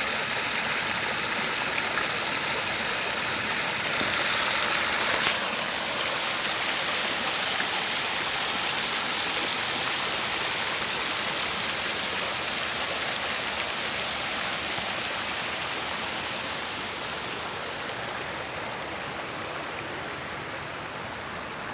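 Rain runoff water rushing steadily, an even rush of flowing stormwater. A brief knock sounds about five seconds in.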